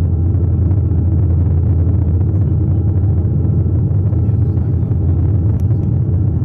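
Cabin drone of a Dash 8 Q400 turboprop in flight: a steady, deep propeller hum with faint even tones above it. Two faint clicks come near the end.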